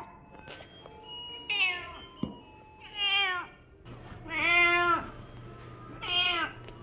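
A calico cat meowing four times, the third call the longest and loudest.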